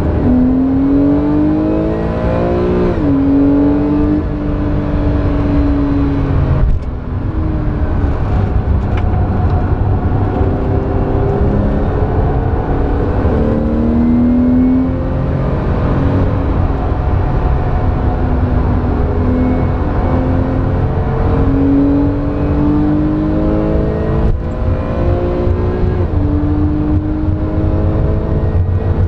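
Porsche 911 flat-six engine, heard from inside the cabin, pulling hard on a race track: its pitch climbs under acceleration and falls sharply at each upshift, about three seconds in and again near the end, over steady tyre and road noise.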